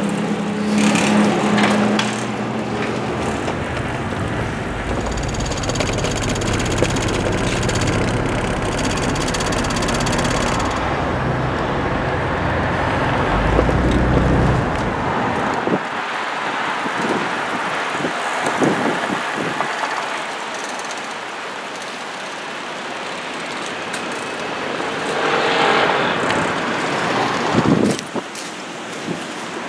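Urban street traffic noise, cars driving past. A low rumble runs through the first half and drops away suddenly about sixteen seconds in, leaving lighter street noise with a few knocks.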